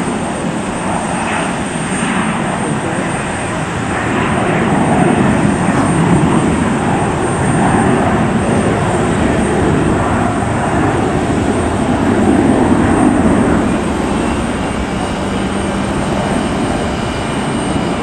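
Jet engines of a twin-engine business jet at takeoff power as it climbs away: a steady, loud engine noise that swells from about four seconds in, is loudest around twelve to thirteen seconds, then eases off.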